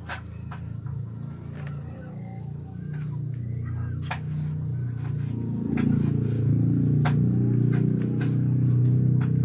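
Fighting field crickets chirping steadily, a high pulsed chirp repeating about four times a second, with a few light clicks from the bamboo cage being handled. Under it a low hum or rumble grows louder about halfway through.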